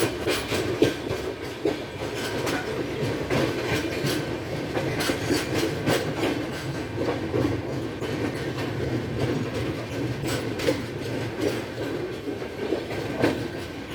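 A train rolling along the track, with a steady rumble and frequent sharp clicks of the wheels over rail joints.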